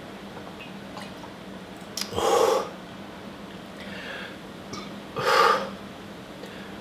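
Two loud, breathy gasps, about three seconds apart and each about half a second long, from a man catching his breath between gulps of a cold drink. A faint steady hum runs underneath.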